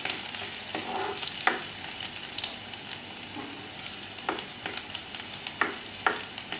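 Chopped ginger and garlic sizzling in hot oil in a non-stick kadhai, fried until just turning pink. A spatula stirs them, scraping the pan a few times.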